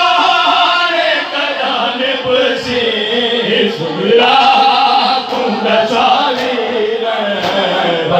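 Noha recitation: a man leads a mourning lament into a microphone in a long, wavering chanted melody, with a group of men chanting along behind him in chorus.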